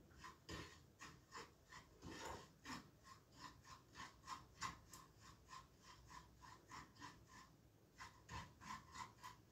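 Faint, rhythmic stirring: a utensil scraping and clicking around a pot about three to four strokes a second, with a brief pause near the end, as a mixture is stirred until it melts.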